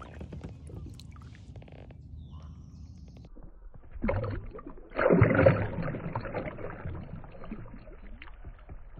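A smallmouth bass being released kicks free of the hand and splashes at the water's surface: a short splash about four seconds in, then a louder churning splash a second later that fades into water noise.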